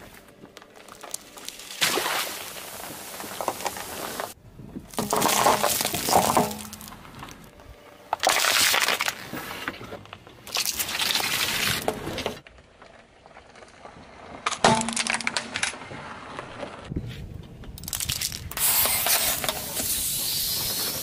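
A car tyre rolling over small objects on asphalt and crushing them, such as hard lollipops, a block of jelly and plastic lighters. There are several separate bouts of crunching and cracking, each a couple of seconds long, with sudden cuts between them.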